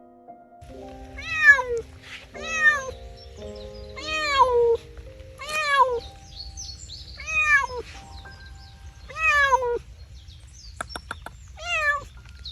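A cat meowing over and over, about seven loud, drawn-out calls that each drop in pitch, over background music.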